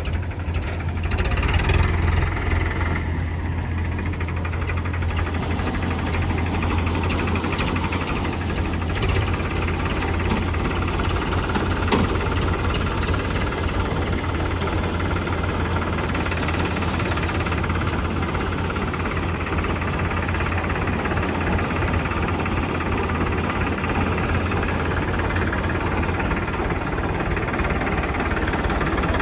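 Combine harvester running steadily, a continuous low engine hum with a busy mechanical clatter over it.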